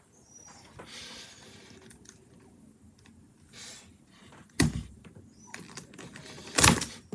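Plastic Rubik's cube pieces being handled and worked with the fingers: soft rubbing and small clicks, with two sharp plastic clacks about four and a half and six and a half seconds in, the second the loudest.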